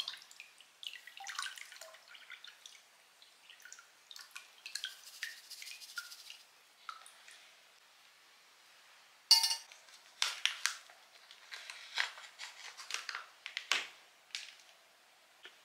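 Water dripping and splashing softly into a plastic basin as a glass measuring jug and a metal mesh strainer are lifted and worked in it. About nine seconds in a sharp click, then a few seconds of crinkling from a plastic soap refill pouch being handled.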